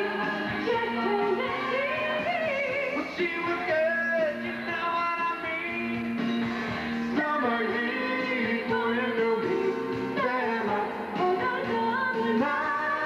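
A woman singing a pop song into a microphone over backing music, with a man joining in on a second microphone. The voices come through a sound system.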